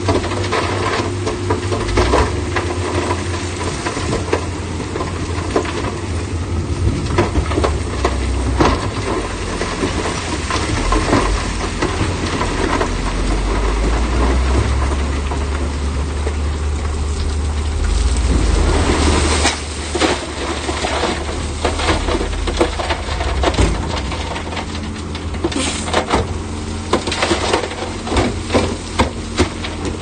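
Heavy diesel earthmoving machinery running steadily, with frequent metallic clanks and knocks and the scrape and clatter of stone. A louder rushing noise builds about 18 seconds in and stops sharply.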